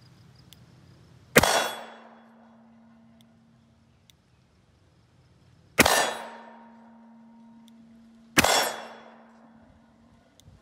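Three .357 Magnum shots from a Smith & Wesson Model 19 Carry Comp revolver with a ported barrel, the second and third closer together. Each shot is followed by a steel target ringing for about two seconds.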